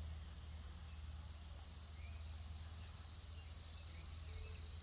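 Insects trilling: a steady, high, rapidly pulsing buzz that stops abruptly near the end, over a low steady hum.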